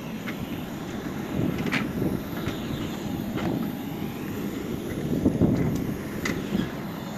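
Steady aircraft noise on an airport apron, a low rumble with a faint high whine, with wind on the microphone and a few short clicks.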